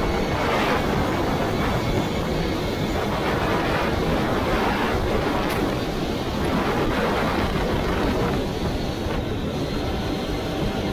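CFMoto CForce 800 ATV's V-twin engine running steadily while riding, mixed with wind noise on the microphone.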